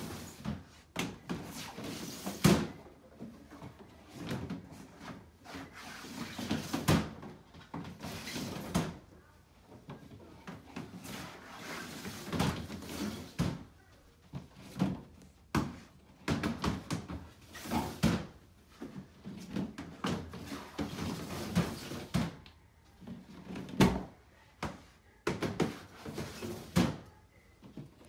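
Plastic snake tubs being slid onto the shelves of a stainless-steel Freedom Breeder 1030 reptile rack, one after another: short sliding scrapes and sharp knocks of plastic on metal, a few of them loud.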